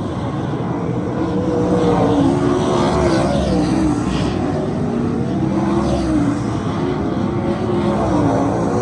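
A field of 410 sprint cars racing, their 410 cubic-inch V8 engines running hard together, with several engine notes rising and falling as the cars go around the track. Near the end, one car passes close by.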